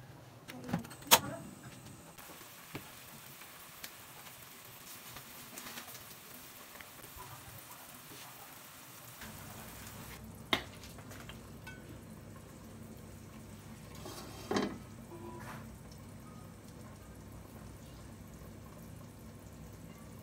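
Faint hiss of a pot of duck kaldereta simmering, with two sharp knocks about a second in. About nine seconds in the hiss gives way to a low steady hum, broken by a sharp click and, a few seconds later, a thump.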